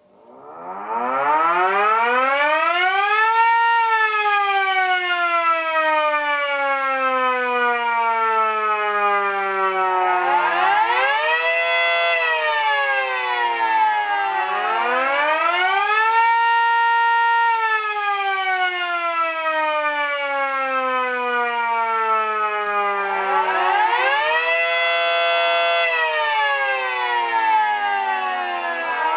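Two miniature model sirens, a Mini Sterling M and a Mini 5T, sounding in turn: each winds up to pitch, holds briefly at the top and winds down slowly, with the next starting its rise while the last is still falling. Four rise-and-falls in all.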